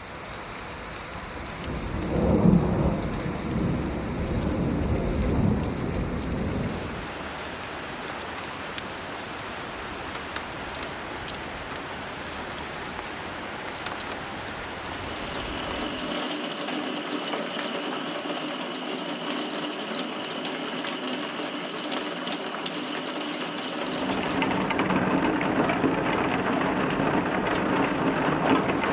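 Rain recordings on several different surfaces, one after another: a steady patter of drops, changing character about 7, 16 and 24 seconds in. A deep low rumble, loudest about two to three seconds in, runs through the first seven seconds.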